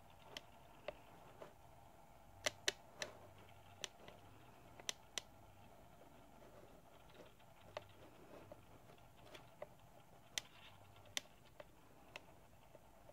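Faint steady hum with about fifteen irregular sharp clicks scattered through it, the loudest a close pair about two and a half seconds in.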